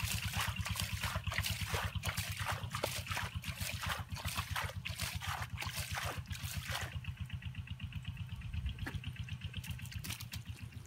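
Hands scooping and splashing muddy water in a shallow drained pond: irregular wet splashes that thin out about seven seconds in, over a steady low throbbing.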